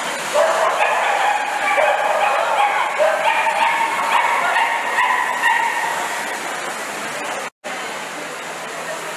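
Dogs barking and yipping repeatedly, about every half second, over a steady background din; the barking stops about six seconds in.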